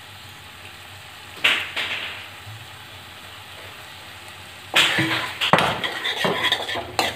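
A steel spoon knocks once against a metal kadhai about a second and a half in. From near five seconds it scrapes and clinks against the pan repeatedly as vegetables are stirred into the sauce.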